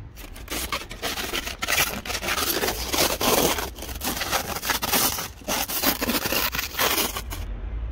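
A loaded wheeled trolley being pushed over gravel, making irregular crunching and scraping. It stops suddenly near the end.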